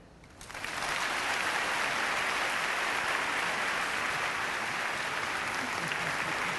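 Large audience applauding, the clapping starting about half a second in, swelling within a second and then holding steady.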